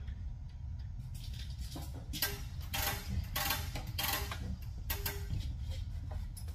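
Irregular clattering, knocks and rustles of tools and parts being handled, heaviest from about two seconds in to past the middle, over a low steady hum.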